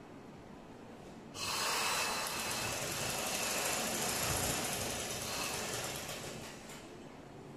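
Electric-motor-driven sewing machine running steadily as it stitches a seam through the fabric, starting suddenly about a second and a half in and winding down near the end.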